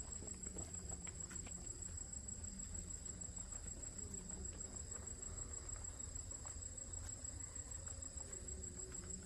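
An insect trilling steadily at a high pitch, over a low background rumble with scattered faint ticks.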